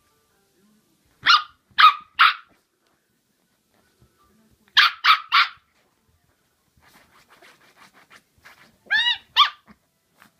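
A puppy barking in short, high-pitched yaps at an orange in front of it. There are three groups: three quick barks about a second in, three more near the middle and two near the end.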